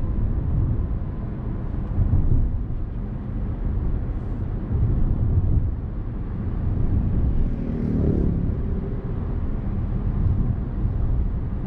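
Road and engine rumble of a new Toyota Corolla Touring driving on the road, heard from inside the cabin.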